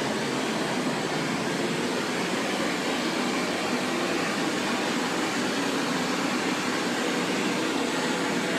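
Pink noise from a dodecahedron loudspeaker: a steady, even hiss with no tones or breaks, the test signal used to fill the source room for an airborne sound insulation test.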